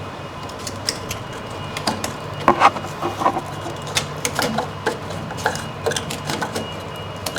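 Irregular clicks, taps and knocks of hard plastic parts on a new Bambu Lab X1 Carbon 3D printer being handled and pried at, as a part that is blocked is worked loose. A faint steady hum runs underneath.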